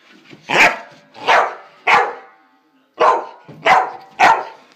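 Dog barking six times, in two runs of three with a pause of about a second between them.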